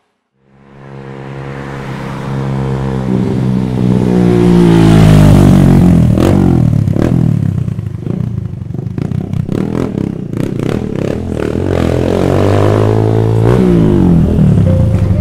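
Small motorcycle engine running and revving, its pitch rising and falling repeatedly, fading in from silence about half a second in and loudest around the middle as the bike approaches.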